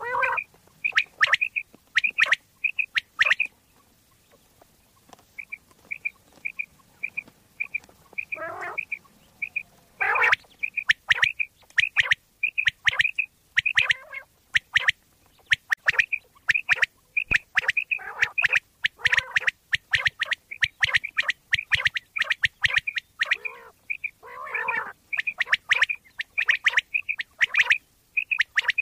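Common quail calling over and over: quick groups of short, sharp notes, with occasional lower, harsher calls between them.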